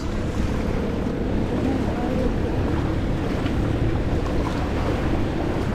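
Steady wind buffeting the microphone over a continuous low rumble.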